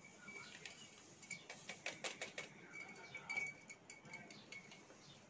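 Metal spoon stirring yeast and sugar into warm water in a small glass bowl, with faint, quick clinks of spoon against glass.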